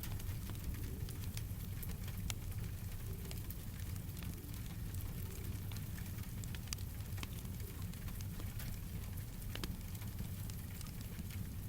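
Crackling fire with steady rain: sharp pops and snaps scattered over a continuous hiss, with a steady low rumble underneath.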